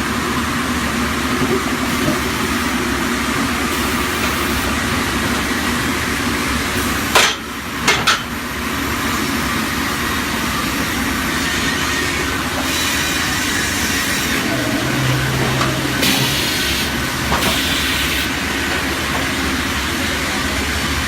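High-speed log cross-cut saw machine running steadily, with a short burst of sharp loud noises about seven seconds in.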